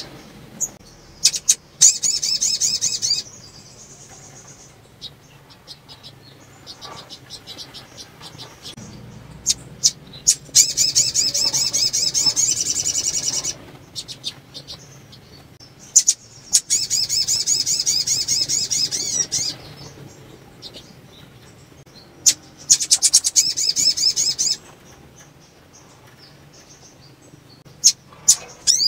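Sunbird calling: four fast, high trilled bursts of one to three seconds each, with single sharp chips in the gaps between them. It is presented as a female sunbird in breeding condition calling, used to stir male sunbirds into song.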